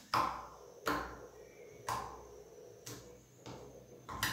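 Sharp popping clicks of slime being pressed and folded by hand to trap and burst air pockets, about one a second. The slime has stiffened from a lot of activator.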